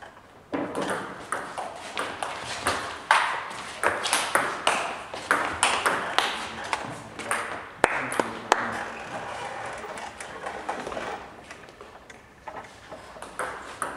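Table tennis ball clicking off bats and the table in a doubles rally, quick irregular knocks that thin out after about eight seconds.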